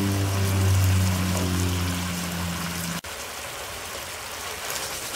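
Ground pork and tofu sauce simmering and sizzling softly in a pan. A steady low hum with overtones sounds over it for the first three seconds, fading, and cuts off abruptly.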